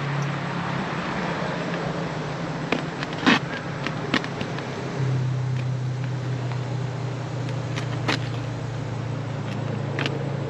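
Steady low hum of a running motor, a little louder about five seconds in, with a few short sharp clicks over it.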